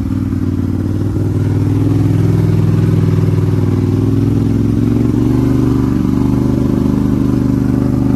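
Polaris Sportsman 850 Highlifter ATV's parallel-twin engine running steadily while being ridden, getting a little louder about one to two seconds in.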